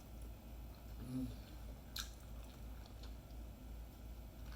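A person chewing a mouthful of oxtail, with soft wet mouth sounds and small faint clicks, a brief hummed "mm" about a second in, and a single sharp click about two seconds in.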